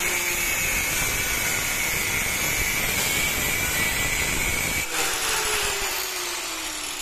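Angle grinder's abrasive cut-off disc cutting through a steel hex bolt, with a steady whine over the grinding noise. About five seconds in the disc breaks through and the grinder runs on with its pitch slowly falling, then the sound stops suddenly.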